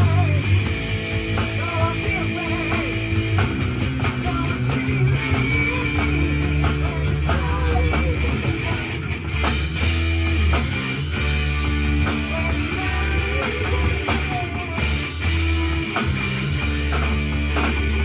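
Rock music: a drum kit played along to a guitar-driven rock track, with a steady beat and sustained bass notes.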